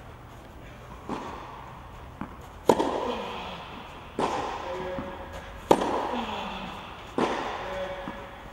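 Tennis ball struck by rackets in a groundstroke rally on a clay court: a sharp pop about every one and a half seconds, five times, each ringing on in the echoing hall.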